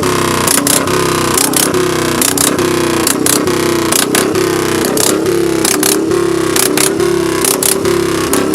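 Motorcycle engine revved over and over in a rhythm, its pitch rising and falling, with sharp cracks several times a second.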